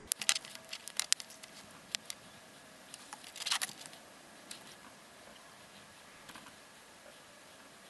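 Faint handling noises from miniature-painting tools while paint is mixed and applied: several light ticks in the first second and a half, another about two seconds in, and a brief scratchy rustle about three and a half seconds in, then only faint room hiss.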